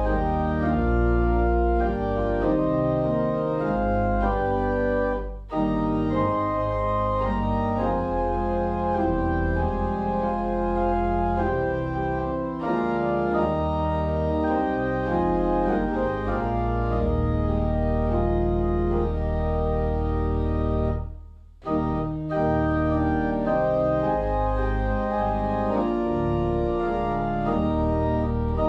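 Organ playing sustained chords over a deep bass line, broken by two brief pauses between phrases, about five seconds in and again about three-quarters of the way through.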